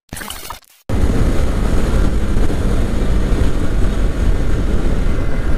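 A short glitchy transition effect, then from about a second in the steady rush of wind buffeting the microphone, mixed with the Yamaha R15M's single-cylinder engine, as the motorcycle is ridden at about 60 km/h.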